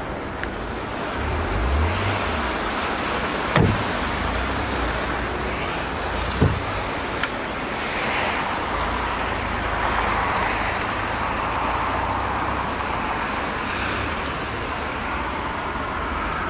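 Steady outdoor background noise with a low rumble, broken by two short thumps, one about three and a half seconds in and another about three seconds later.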